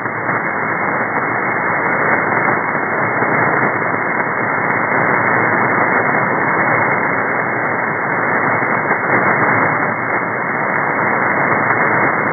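Shortwave receiver on the 4651 kHz upper-sideband aeronautical channel giving a steady, even hiss of band noise, with no voice transmission on the channel.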